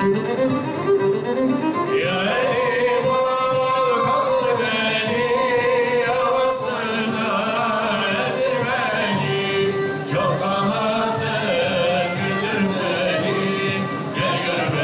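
Turkish Sufi devotional hymn (ilahi) sung by a man with a bowed-string accompaniment, the melody held in long, ornamented notes.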